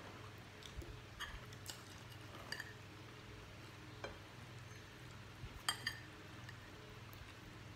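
A metal spoon clinking and scraping against ceramic plates, a handful of light taps and one louder ringing clink near the end, over a faint steady low hum.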